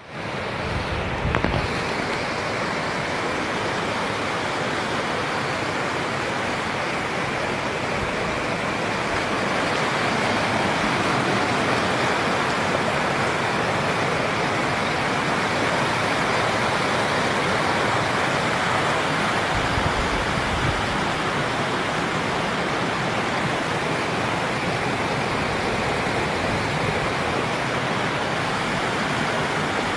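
Steady, loud rush of fast-flowing water, a stream swollen by heavy rain.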